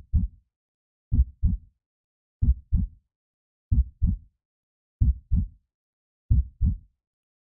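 Heartbeat sound effect: steady lub-dub pairs of low, dull thumps, about one pair every 1.3 seconds, a slow resting pulse, with silence between beats.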